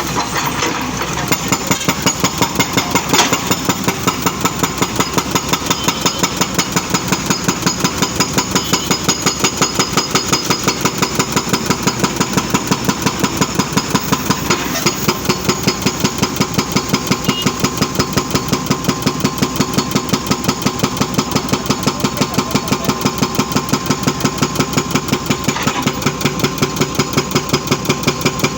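Excavator's diesel engine running steadily, with an even, rapid pulsing of about four beats a second. A single sharp knock comes about three seconds in.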